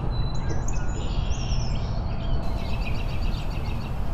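Small birds chirping in quick, evenly repeated notes, over a steady low rumble.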